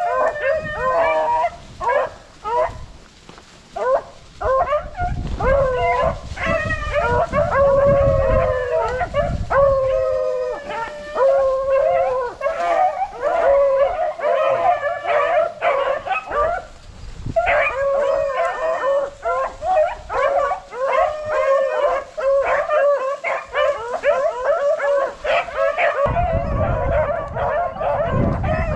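A pack of beagles baying and bawling together in overlapping cries, nearly unbroken with a couple of brief lulls: hounds in full cry running a rabbit's scent trail.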